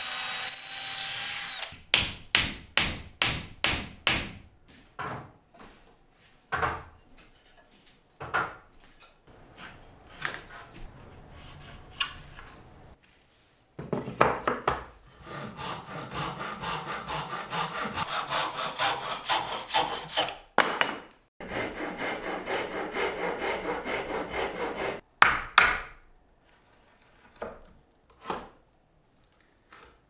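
A handsaw cutting tenons in a wooden frame piece, in short sets of quick back-and-forth strokes with pauses between, and two longer steady runs of sawing in the second half. A cordless drill boring into wood stops about two seconds in.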